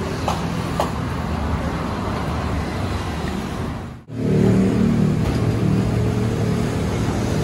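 Street ambience with road traffic and a few light clicks in the first second. A brief drop about four seconds in is followed by a louder, steady hum with low droning tones.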